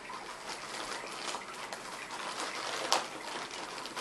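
Plastic mailer bag crinkling and rustling as hands dig into it and pull out a wrapped item, with one sharp crackle about three seconds in.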